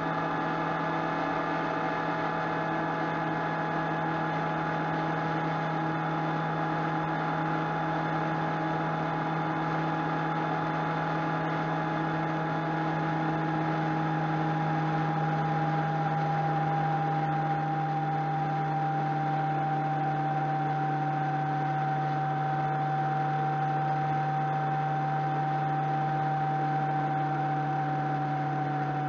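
Motorcycle engine running at a steady highway cruise over a rush of wind and road noise, recorded by a cheap action camera mounted on the bike. The hum is steady, and its pitch eases down slightly in the second half.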